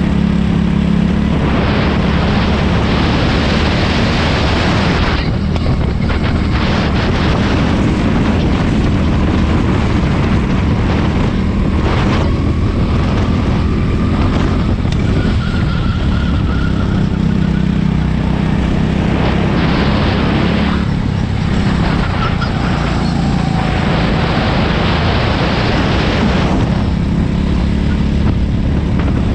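Go-kart engine running hard at racing speed, heard from on board the kart. Wind rush over the microphone swells and fades several times.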